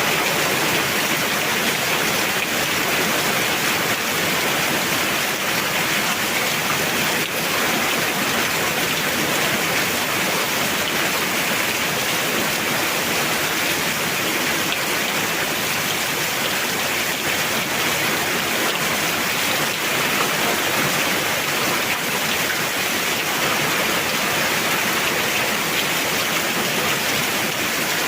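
Heavy rain falling steadily, a dense even hiss of drops without a break.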